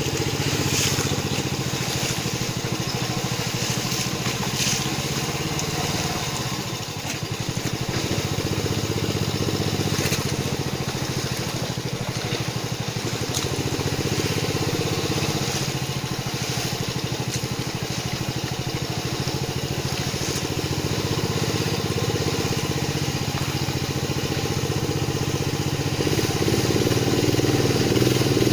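Long-tail boat engine running steadily under way, getting louder near the end.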